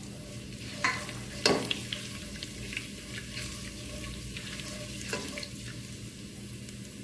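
Whole spices (cumin and fennel seeds with cinnamon, cloves and cardamom) sizzling steadily in hot oil in a pan, with a few sharp ticks.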